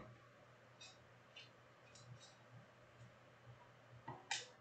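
Faint clicks and light taps of trading cards in plastic sleeves and toploaders being handled and set down, a few scattered through, with a sharper click near the end.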